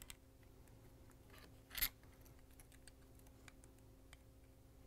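Faint handling clicks of wire spade connectors being pushed onto the tabs of a KitchenAid stand mixer's speed control circuit board, with one short, sharp click-scrape a little under two seconds in, over a faint steady hum.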